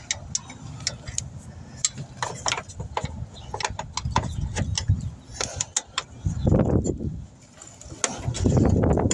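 Ratcheting wrench clicking in short strokes as a bolt by the A/C compressor line is worked loose, with two louder dull rumbling bumps from hands and tool handling in the second half.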